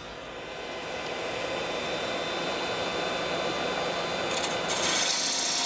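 Wood lathe running with a steady high whine as it comes up to speed, then a parting tool cutting into the spinning English oak blank: a harsh, rough hiss that starts about four seconds in and gets louder.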